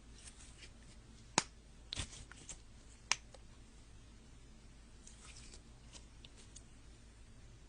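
Slime being played with by hand, giving soft crackles and a few sharp popping clicks, the loudest about a second and a half in and at three seconds.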